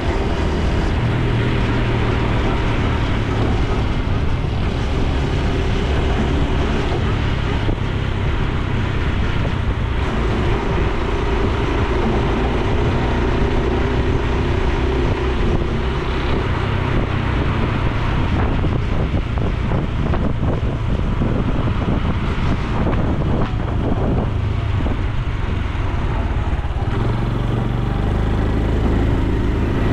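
Honda Super Cub C125's air-cooled single-cylinder four-stroke engine and exhaust running steadily while riding, with wind noise on the microphone. The engine note shifts near the end.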